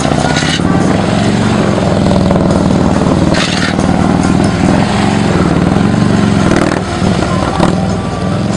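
Large police motorcycle's engine running at low speed, its pitch wavering up and down as the throttle is worked through tight, slow turns. A brief hiss comes about three and a half seconds in.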